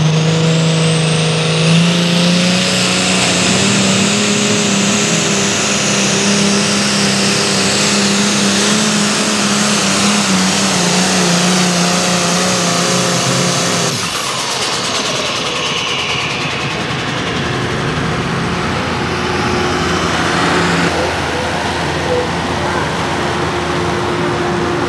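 Light pro stock pulling tractor's turbocharged diesel engine, running at full throttle under load while it drags the weight-transfer sled. A high turbo whine climbs over the first couple of seconds and then holds. About fourteen seconds in, the engine note cuts off suddenly as the throttle comes off, and the whine winds down.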